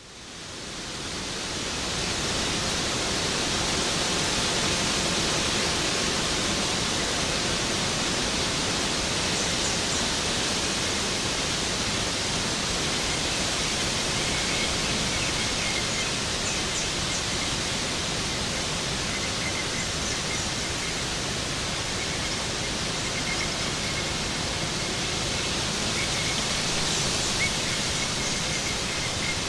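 Waterfall: a steady, even rush of falling water that fades in over the first two seconds.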